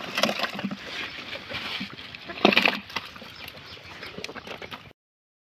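Live fish flapping in a plastic drum, a run of wet slaps and knocks with a louder flurry about two and a half seconds in. The sound cuts off abruptly near the end.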